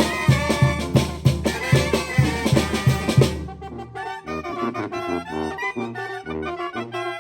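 Oaxacan village brass band playing: the full band with a steady beat of drums and cymbals, until about halfway in the percussion drops out and the brass and reed instruments carry the melody alone.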